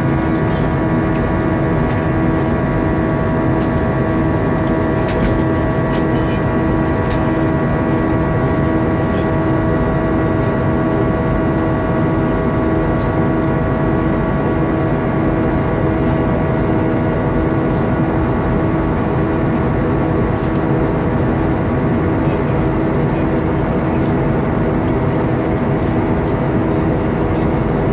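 Airbus A320 cabin in flight: a steady rush of engine and airflow noise with a constant hum of several tones, one low tone pulsing evenly.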